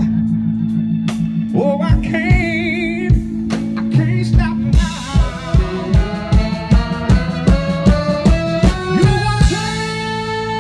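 Live soul band playing: drums keeping a steady beat under electric guitar, and a horn section of trombone and saxophone holding a chord near the end.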